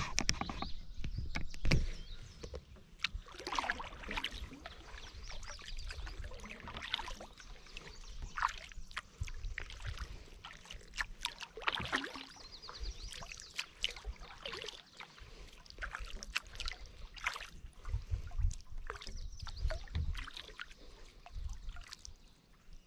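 Kayak paddle dipping and splashing through the water, stroke after stroke at an uneven pace, with water trickling off the blade.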